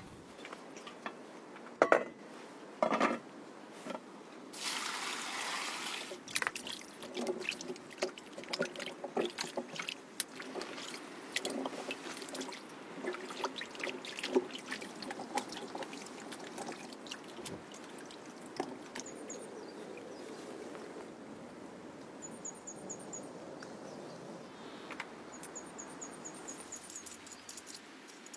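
Liquid being poured briefly, amid knocks and small clicking clatter of hands working with kitchen things. A couple of sharp knocks come first, and faint short high chirps are heard later.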